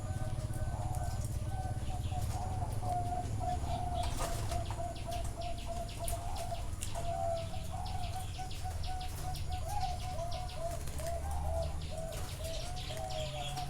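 Zebra doves cooing: a continuous run of short, curving, rapid notes, with a steady low rumble underneath and short high clicks in the middle stretch.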